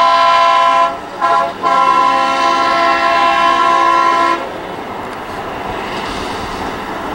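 Mount Washington Cog Railway steam locomotive's whistle: a blast that ends about a second in, a short toot, then a long steady blast of about three seconds. After that only a quieter steady noise of the train and the open air remains.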